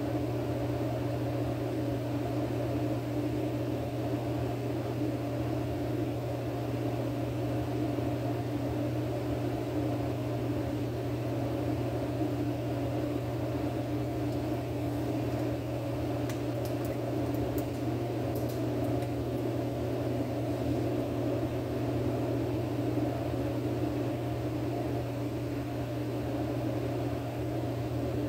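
Steady low mechanical hum, with a few faint clicks about sixteen to nineteen seconds in.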